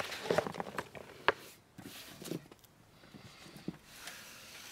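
Light handling noises of hands working paper and small tools on a desk: a few soft taps and rustles, with one sharp click a little over a second in.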